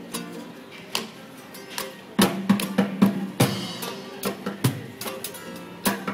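Acoustic band music: two acoustic guitars with a cajón and cymbal, joined by hand clapping. The percussion comes in strongly about two seconds in and keeps a steady beat.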